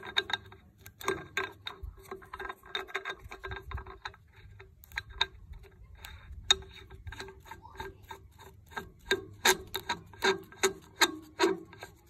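Irregular light metallic clicks and ticks as a threaded steel bush is screwed in by hand on the nose of a surface grinder spindle, getting louder and closer together near the end.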